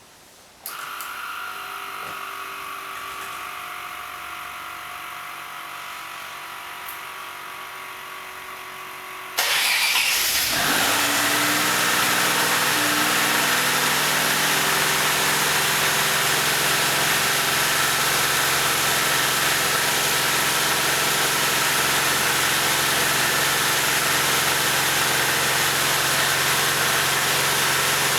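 An electric whine with several steady tones comes on with the Maserati 222 4v's ignition. About nine seconds in, its twin-turbo V6 cranks, starts with a sudden jump in loudness, and settles into a steady idle.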